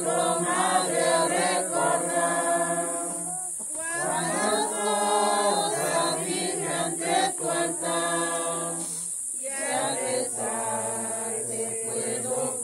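A group of mourners singing a Spanish hymn together, unaccompanied, in long held phrases with short breaks about three and nine seconds in. A steady high hiss runs underneath.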